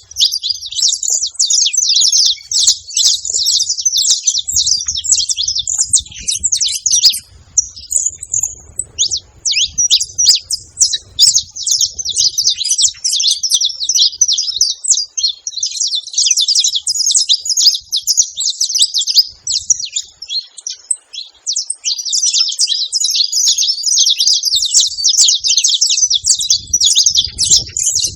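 Several saffron finches chirping and singing together in a rapid, continuous high chatter, with a short lull about eight seconds in.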